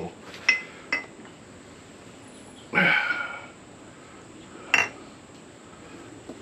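Beer poured from a glass bottle into glass mugs: light clinks of the bottle against the rims, a louder gurgle from the bottle about three seconds in, and a sharper ringing clink about five seconds in.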